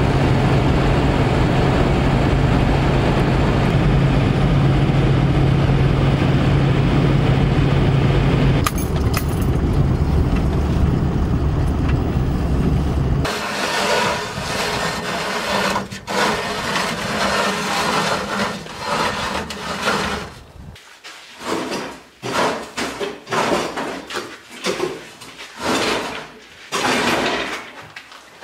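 Truck running on the road, heard from inside the cab as a steady hum. About 13 seconds in it gives way to a rough, uneven rumble as a table saw on its stand is pushed over snow, followed by irregular knocks and scuffs.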